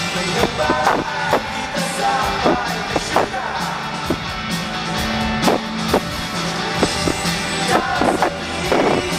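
Live pop-rock band playing through a stadium PA, with electric guitars, bass and drums and a male voice singing over them. The bass is very loud and overloads the recording.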